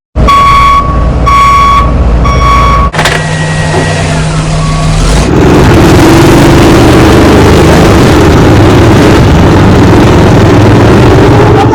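Go-kart sound-effects unit playing three short electronic beeps like a reversing alarm, then a steady electronic tone for about two seconds, then a loud, noisy engine-like effect from about five seconds in.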